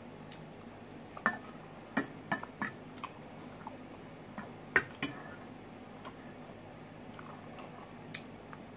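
A metal fork clinking and scraping against a stainless steel mixing bowl as salad is scooped up: scattered sharp taps, about ten in all, the loudest a little under five seconds in.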